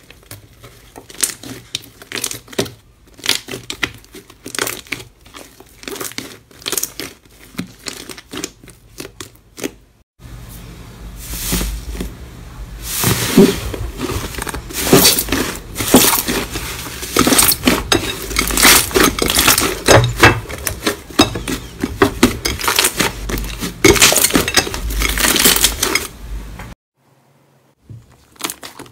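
Hands squeezing and kneading thick slime, with dense crackling and popping as trapped air bursts through it. The crackling grows much louder about ten seconds in and breaks off briefly near the end.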